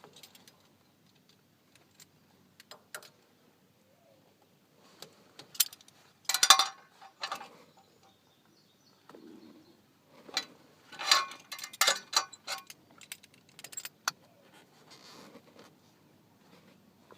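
Small metal parts or tools clinking and jangling as they are handled, in scattered bursts with quiet gaps, busiest about six seconds in and again around eleven to twelve seconds.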